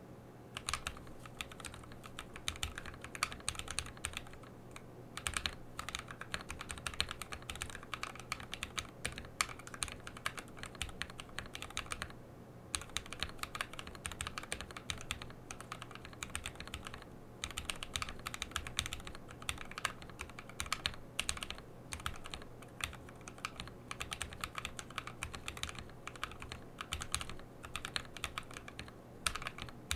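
Typing on a Trashman Coriander custom mechanical keyboard built with a Ketch PCB, POM plate, lubed and filmed switches and Signature Plastics SA keycaps. It is a quick, continuous run of keystrokes with short pauses about four, twelve and seventeen seconds in.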